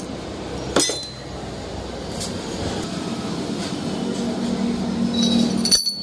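Metal clinks from handled motorcycle engine parts, a connecting rod and its bearing: one sharp ringing clink about a second in and a few more near the end, over a steady low hum.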